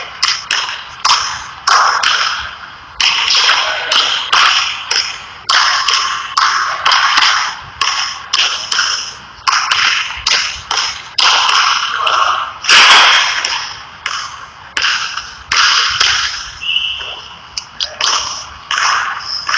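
A basketball dribbled repeatedly on a hardwood gym floor: a run of sharp, irregular bounces, each ringing on in the hall's echo. A short high squeak comes about three-quarters of the way through.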